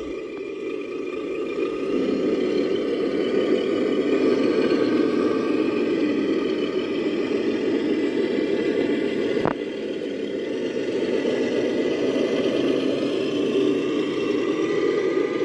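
GMADE RC rock crawler's electric motor and geared drivetrain whirring steadily as it drives, with a faint high whine over a dense gear rumble. One sharp click about nine and a half seconds in.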